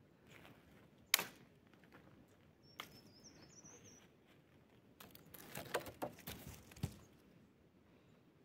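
A few sharp knocks and handling clicks, one about a second in and a cluster between about five and seven seconds in, with a brief high bird chirp around three seconds in.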